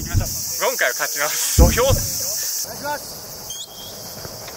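A steady, even, high chorus of night insects chirping. Men's voices and laughter are heard over it in the first half, with one dull thump about a second and a half in.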